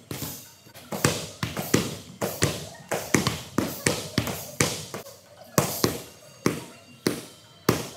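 Muay Thai kicks and punches smacking into kick shields and strike pads, several pairs training at once, giving sharp hits about two to three a second that echo around a large hall.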